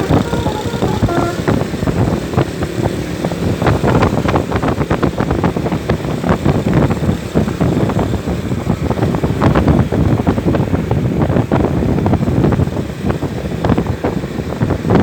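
Loud, steady vehicle engine and road noise with many short irregular crackles. The last few notes of a multi-tone telolet bus horn sound in the first second or so, then stop.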